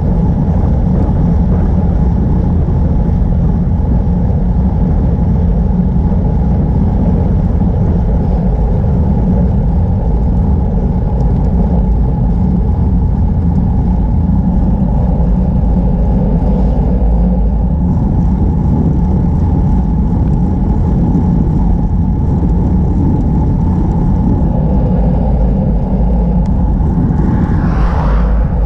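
Steady, heavy wind rumble on the microphone of a bicycle-mounted camera while riding at speed, with a brief rising hiss near the end.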